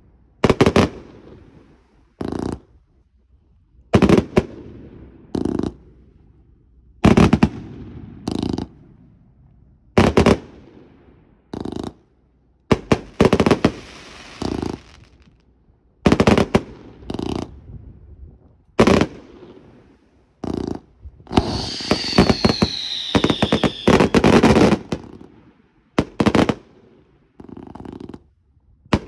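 Fireworks going off in pairs of sharp bangs about a second and a half apart, the pairs repeating every three seconds or so. About three-quarters of the way through comes a dense run of rapid crackling bangs, with a high whistle falling in pitch.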